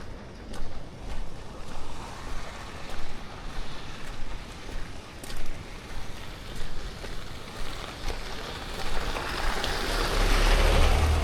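Rushing water from a waterfall or cascade, growing louder near the end, under regular footsteps on a trail.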